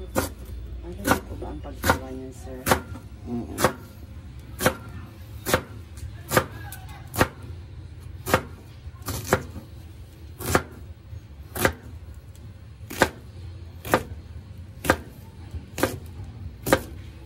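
Kitchen knife slicing through a softened, boiled banana heart and striking a plastic cutting board, one sharp chop about every second.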